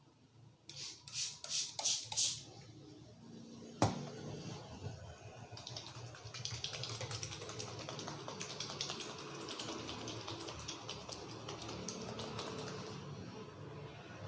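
Hands working on a head and hair in a massage: a few quick rubbing strokes, a single sharp crack about four seconds in, then steady rapid fingertip crackling and tapping.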